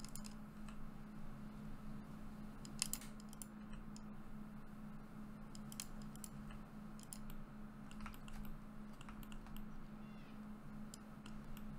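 Faint, scattered computer keyboard and mouse clicks over a steady low hum.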